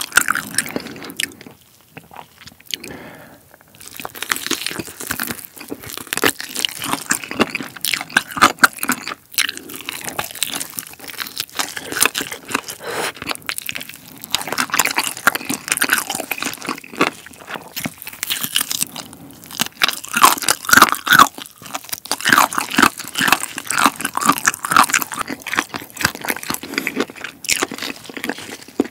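Close-miked eating sounds of a person biting into and chewing a Goobne Gochu Basasak chili-pepper chicken drumstick, with dense crunching of the coating and a short lull about two seconds in.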